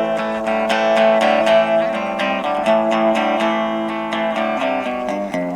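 Guitar strummed in a steady rhythm, playing the opening chords of a song before the singing comes in, with the chords changing twice.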